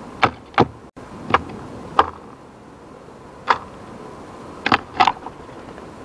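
Sharp taps on a wooden bird table as a magpie pecks at mealworms: about seven single knocks at irregular intervals, over a steady background hiss.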